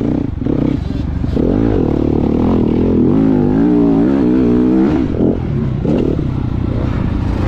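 Motocross bike engine running under throttle, its pitch rising and falling again and again in the middle as the revs go up and down.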